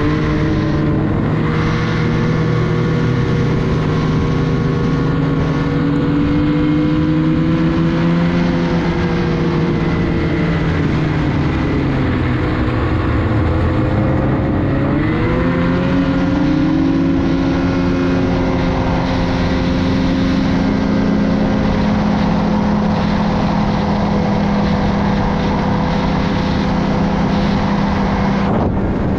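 Ski-Doo Renegade snowmobile engine running under way. Its pitch sags through the middle as the throttle eases off, then rises again as the sled picks up speed and holds steady.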